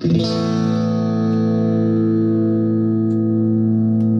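Electric guitar with single-coil pickups, played through a compressor pedal into a small amp. One chord is struck once and left ringing, holding an almost even level with hardly any fade: the long, compressed sustain.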